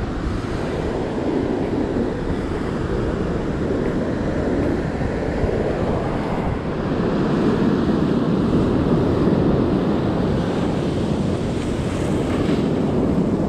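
Wind buffeting the microphone, with ocean surf washing up on the beach underneath.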